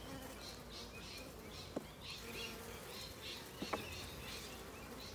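Honeybees buzzing steadily around an open hive as a frame crowded with bees is lifted out, with two light clicks about two seconds apart.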